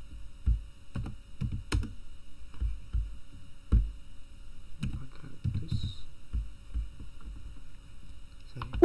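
Computer keyboard and mouse being tapped and clicked irregularly, short taps with dull low thuds.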